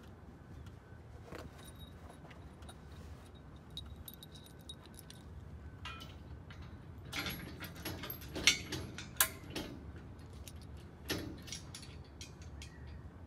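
Steel bolts, nuts and washers clinking and tapping against a steel rack bracket as they are fitted by hand, with a cluster of sharp metal clanks a little past the middle and one more near the end.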